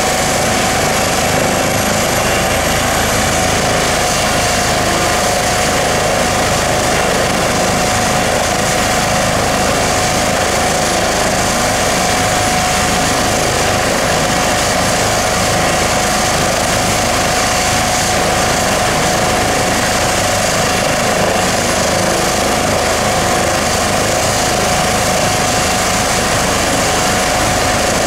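Airbus H135 P3 helicopter running on the ground with its main rotor turning, its twin Pratt & Whitney PW206B3 turboshaft engines giving a steady whine over the rotor noise.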